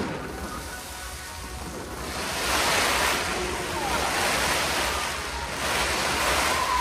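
Fireworks giving off a dense crackle and hiss, swelling about two and a half seconds in and again near the end.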